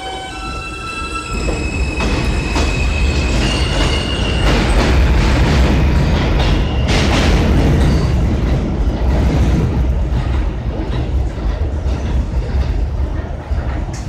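R160A subway train accelerating away from the station: its propulsion gives a series of steady tones stepping upward in pitch for the first few seconds, then the loud rumble and clicking of wheels on rail as the cars pass, fading over the last few seconds as the train pulls away.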